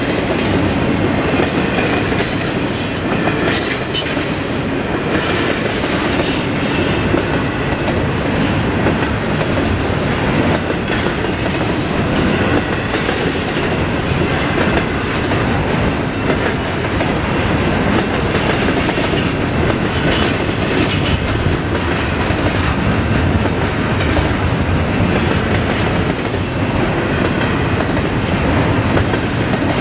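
Double-stack intermodal container cars rolling past: steady noise of steel wheels on rail with clickety-clack over the rail joints, and brief high-pitched wheel squeals a few seconds in.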